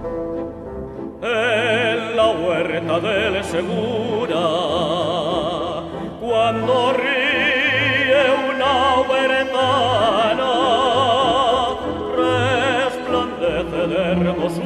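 Zarzuela singing: an operatic voice with wide vibrato over orchestral accompaniment, the voice coming in about a second in after a brief quieter orchestral passage.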